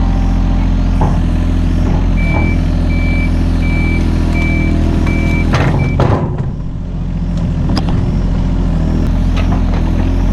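Mini excavator's diesel engine running steadily, with its travel alarm beeping about six times from about two seconds in. Around six seconds in there is a sharp crack, and the engine sound dips briefly before picking up again.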